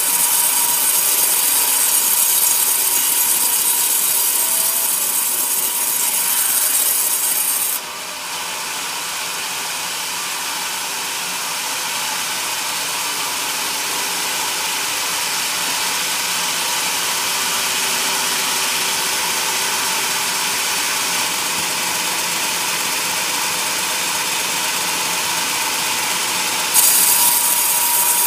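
Vertical band sawmill blade ripping lengthwise through a coconut log: a steady, continuous sawing noise with a faint whine. The sound drops abruptly about eight seconds in and comes back up louder near the end.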